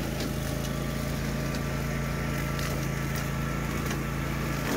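Swisher Brush King tow-behind rough-cut mower driving into brush behind a subcompact tractor. The engines drone steadily, with scattered sharp cracks and snaps as saplings and stems are cut down.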